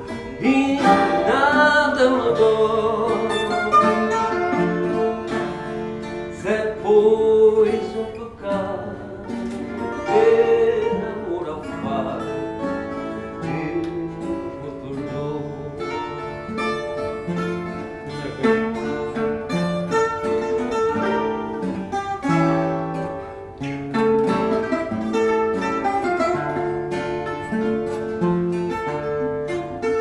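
A small ensemble of plucked string instruments, guitars and a ten-string viola, playing a tune together without a pause.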